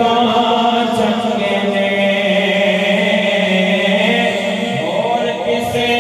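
A man singing a naat, a devotional poem in praise of the Prophet, into a microphone, in long held notes.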